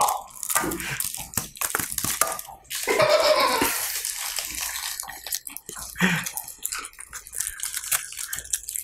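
Crinkling and crunching as a KitKat Dessert Delight chocolate and its wrapper are worked at with the fingers and bitten, a run of short crackles with a louder rustling burst about three seconds in.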